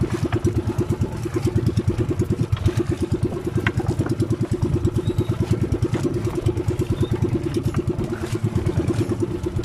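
Small engine of a bamboo-outrigger fishing boat running steadily at low speed, with a fast, even pulsing beat.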